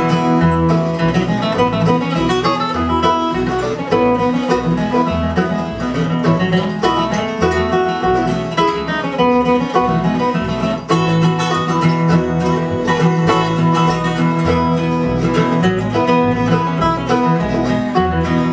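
Acoustic bluegrass string band playing an instrumental break: acoustic guitars and mandolin picking over a steady upright bass line, with no vocals.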